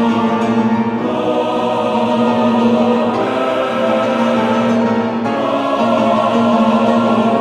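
Background choral music: voices holding long, slow chords that change every two seconds or so.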